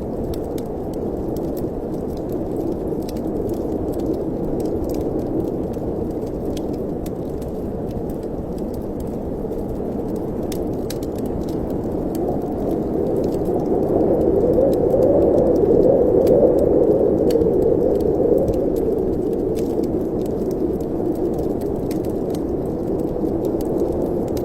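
Wind blowing steadily with a low, hollow sound, swelling in a gust about two-thirds of the way through, over the small scattered pops and crackles of a wood fire.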